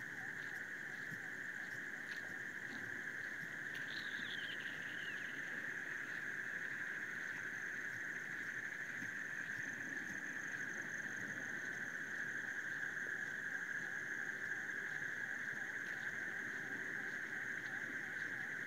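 A steady nocturnal insect chorus: a continuous high-pitched trill, with a fainter chirp repeating evenly beneath it and a brief falling call about four seconds in.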